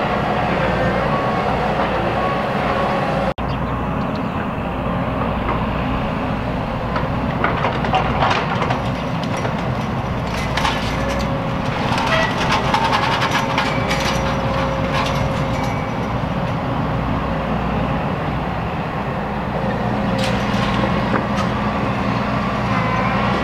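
Caterpillar tracked excavator's diesel engine running steadily while it works demolition debris, with clattering and crashing of broken material through the middle and again near the end.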